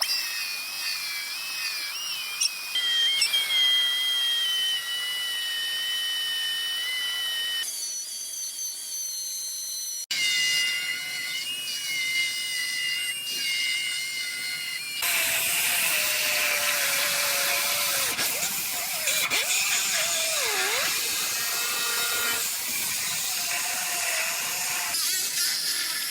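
High-speed power cutting tools whining as they cut through a steel frame crossmember, the pitch dipping and wobbling as the tool is loaded. The sound breaks off and changes abruptly several times, as in spliced segments.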